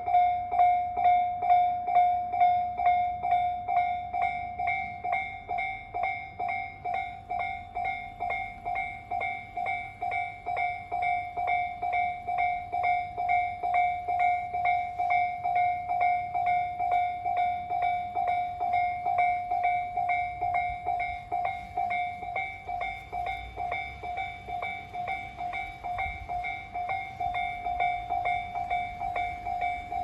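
Japanese electronic level-crossing warning bell of the Tobu Tojo Line type, dinging in a steady repeating rhythm of about two strokes a second. It warns that a train is approaching, with the barriers down. The bell is a little quieter after the first few seconds.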